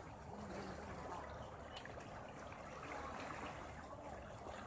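Lake water splashing and trickling in a steady wash.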